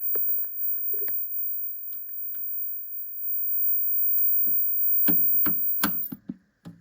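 Commodore 1084S CRT monitor making odd noises: a steady high-pitched whine with a hum-like tone under it, broken by irregular crackling clicks and pops that come thicker toward the end. About six seconds in the whine stops and the sound drops away, leaving scattered clicks.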